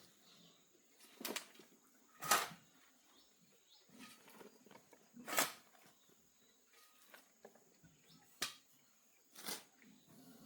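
A handful of short, sharp knocks, about five of them at uneven intervals, with faint rustling in between.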